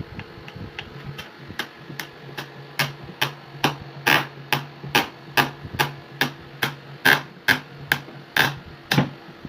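Hammer blows on wood in a steady, even rhythm, about two and a half strikes a second, some louder than others, over a steady low hum.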